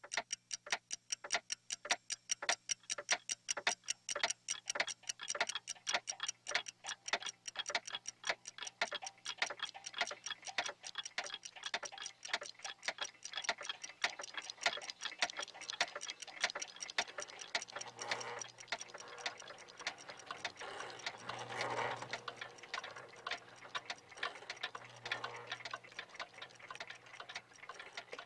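Clock ticking in a quick, even rhythm, the ticks growing denser and less regular in the second half. About two-thirds through, a rushing swell of noise rises under the ticking and fades again.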